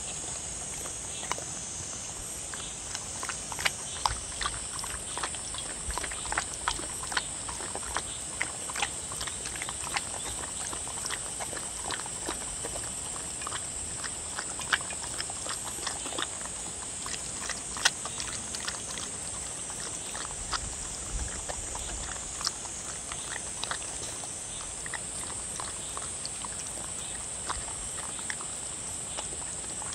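A dog eating wet seaweed soup from a dish: irregular lapping and chewing, a few short wet clicks and smacks a second.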